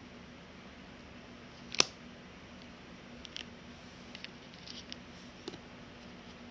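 Small clicks and taps of an iPhone 13 Pro and its cardboard box being handled, with one sharp click about two seconds in and a few lighter ticks later. A faint, low, steady hum runs underneath.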